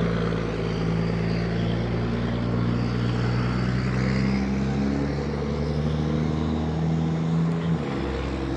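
Car engine humming steadily with road noise while driving at low speed, heard from inside the vehicle; the engine note shifts slightly near the end.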